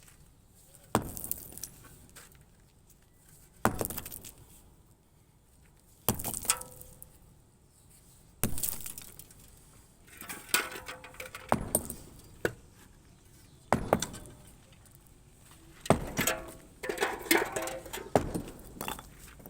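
Hand hammer blows on reinforced concrete during demolition: a series of sharp, separate strikes, a few seconds apart at first and coming faster in the second half. Some are followed by brief ringing and the clink of broken pieces.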